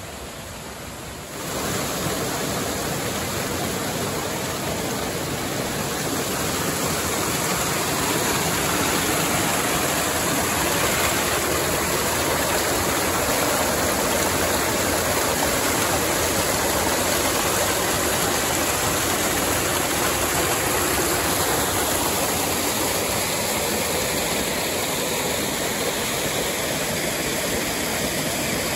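Creek water rushing and cascading over rocks close to the microphone: a steady, full rush of white water that steps up in loudness about a second and a half in and then holds.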